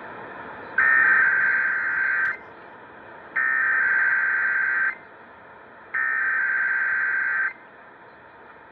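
Emergency Alert System SAME header: three identical bursts of buzzing digital data tones, each about a second and a half long with about a second between them, over a steady broadcast hiss. These bursts encode the alert header that opens an EAS test.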